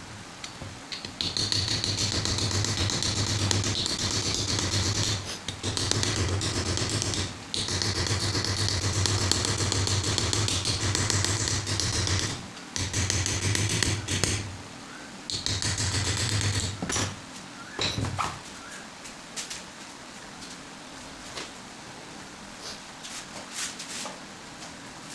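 A handheld corded power tool runs in several spells of a few seconds, with short breaks, as it shapes a wooden knife handle, giving a steady low hum with a high whine over it. It stops about eighteen seconds in, followed by a few light knocks and clicks.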